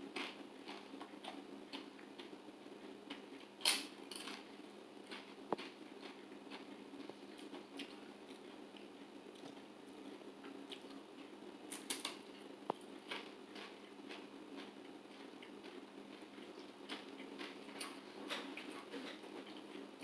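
Quiet crunching and chewing of a thin, delicate corn tortilla chip made with carrot and flaxseed, with a few sharp crunches, the clearest about four seconds in and again about twelve seconds in, over a faint steady room hum.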